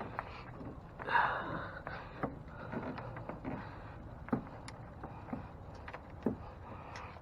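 Hands working on parts: scattered light taps and clicks at irregular intervals, with a louder rustle about a second in.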